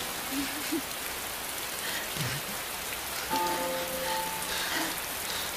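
Heavy rain pouring down steadily. Soft background music holds long notes over it from about three seconds in.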